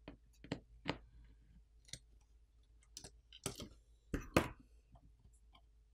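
Scattered light clicks and taps of a metal pry tool against a smartphone's main board and flex-cable connectors as the board is pried loose, the loudest pair about four seconds in.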